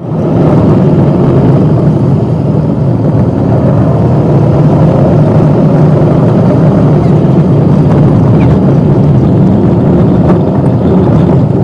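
Steady, loud rumble of a car driving at speed on the open road, heard from inside the cabin: engine, tyre and wind noise blended together.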